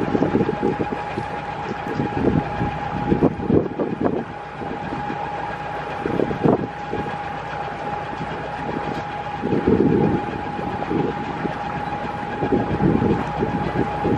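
Wind buffeting the microphone in irregular low gusts, over a steady high engine whine from a boat.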